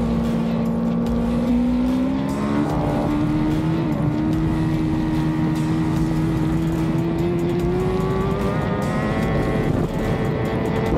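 Racing motorcycle engine heard from an onboard camera, held at high revs and climbing in pitch as the bike accelerates, with a brief dip in pitch and level near the end.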